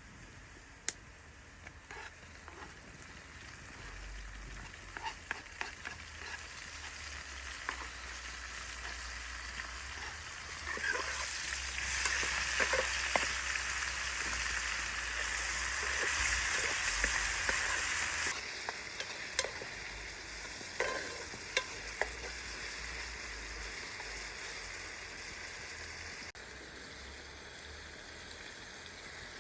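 Food sizzling and frying in a pan over a campfire, with the scrape and clicks of a utensil stirring it. The sizzle builds, is loudest for several seconds near the middle, then drops off suddenly and carries on more quietly.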